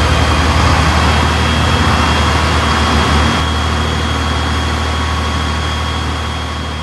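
MAN D2866 marine diesel, an inline six-cylinder engine, running steadily with a deep even hum and a thin steady high whine.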